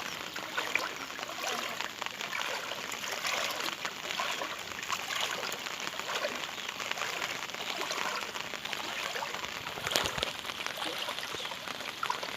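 Floodwater flowing and splashing steadily, with a single sharp knock about ten seconds in.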